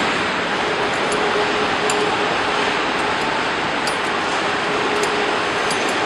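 Common rail injector and pump test bench running: a steady hiss with a faint hum and occasional light ticks.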